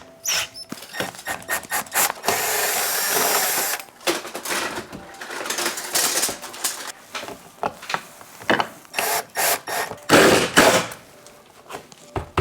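A handheld power tool runs steadily for about two seconds, amid repeated knocks and clatter of hands working on the wall.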